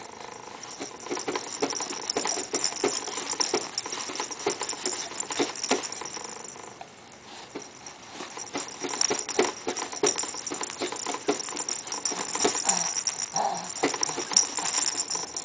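A soft fabric toy ball with a rattle inside rattling and jingling as a baby kicks and bats it, with irregular taps. The jingling stops for a couple of seconds about seven seconds in, then picks up again.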